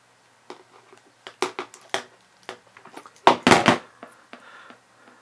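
A small socket ratchet clicking in short, uneven runs as it tightens the nozzle on an Anycubic Vyper hotend, then a louder cluster of metal knocks a little after three seconds in.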